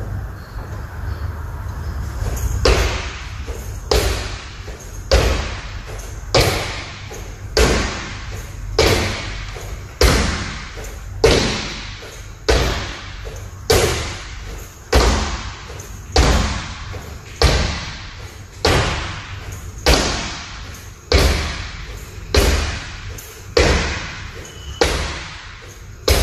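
Feet in trainers landing on a wooden studio floor during power jumping jacks: a thud about every 1.2 seconds, starting about two and a half seconds in, each followed by a short echo of the hall.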